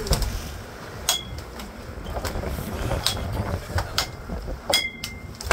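Sharp knocks and metallic clinks at irregular intervals, about six in all, some ringing briefly, the loudest near the end, over the steady low rumble of the boat's engine and wind.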